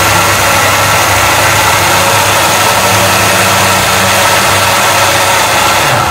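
Electric blender running at full speed, puréeing the cooked butter chicken sauce with a little water added. It gives a loud, steady whir that winds down right at the end as the motor is switched off.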